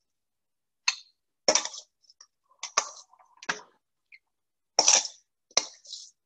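Kitchen dishes and utensils clinking and knocking while salad ingredients are handled: about eight separate short clatters at irregular intervals, some with a brief ring.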